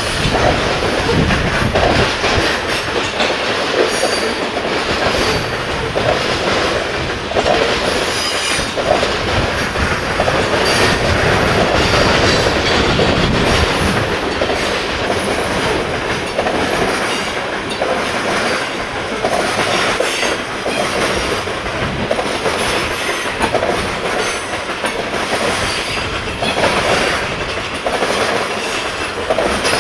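Cars of a BNSF unit coal train rolling past steadily, their wheels clicking over the rail joints with now and then a faint high wheel squeal.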